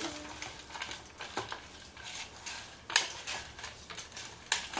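Chopped onion, green chilli and coriander leaves being mixed by hand in a stainless steel bowl: a soft rustle with scattered light clicks and clinks against the metal, the sharpest about three seconds in and again near the end.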